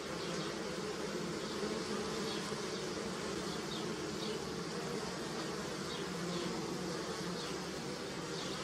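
Honeybees buzzing in a steady, dense hum, with faint short high chirps over it.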